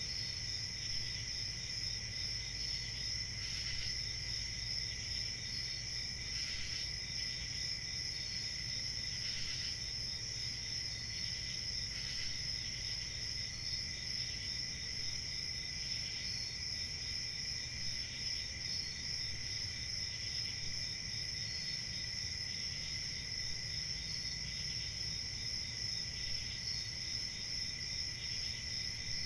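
A chorus of crickets chirping steadily, several insects trilling together at different pitches, with one cricket giving a short chirp about every two to three seconds above the rest.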